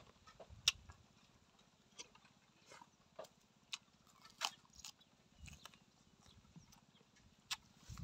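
Close-up eating sounds: scattered crisp crunches and mouth clicks as a man bites and chews a raw vegetable stalk with chicken feet salad, irregular and a second or so apart.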